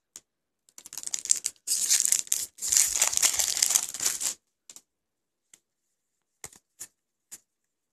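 A Magic: The Gathering booster pack's foil wrapper crinkling as it is torn open and the cards pulled out, starting about a second in and stopping after about three and a half seconds, followed by a few faint clicks of cards being handled.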